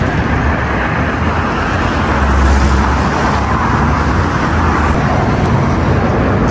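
Steady city road traffic noise, with a deeper low rumble swelling about two to three seconds in.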